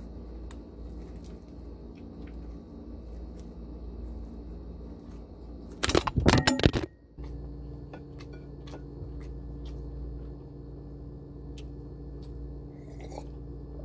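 Steady low room hum with faint, scattered small clicks of eating. About six seconds in, a loud noisy burst lasting about a second cuts across, then a different steady hum runs on with more small clicks.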